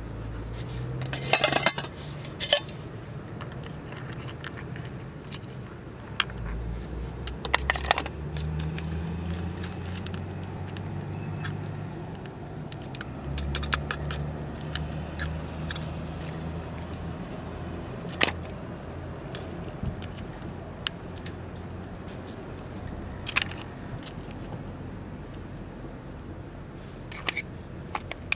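Metal camp cookware and utensils being handled: scattered clinks and knocks, in a few clusters, over a low steady rumble.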